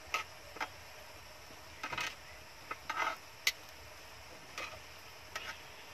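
About ten scattered light clicks and knocks of a serving spoon against a pan and plate as grilled chicken is ladled out over a wood fire, over a low steady hiss.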